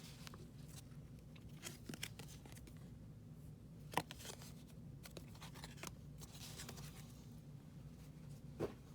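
Faint scattered clicks and slides of 1994 Flair baseball trading cards being handled, with one sharper click about four seconds in, over a low steady hum.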